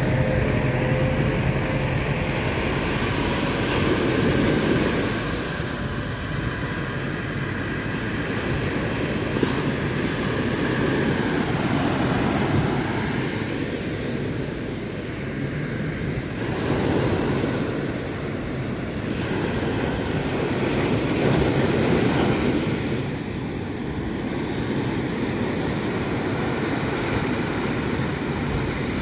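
Surf breaking and washing in, swelling every few seconds, with wind on the microphone. A boat engine's steady drone is heard faintly at first and fades out within about the first ten seconds.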